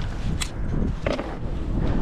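Wind rumbling on the microphone, with three short clicks about a second apart as a freshly caught perch is unhooked by hand.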